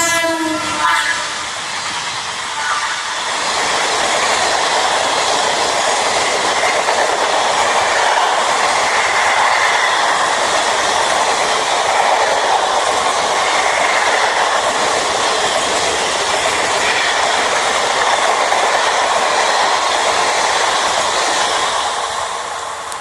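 An Indian Railways WAP-7 electric locomotive's horn ending about half a second in, then the steady rolling noise of a long passenger train's coaches running past on the rails.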